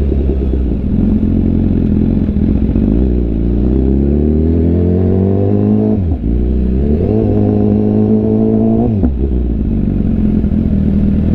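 BMW S1000RR inline-four sport bike engine running under the rider, heard through its exhaust: the revs climb from about two seconds in and drop sharply about six seconds in, climb again and drop about nine seconds in, then hold steady.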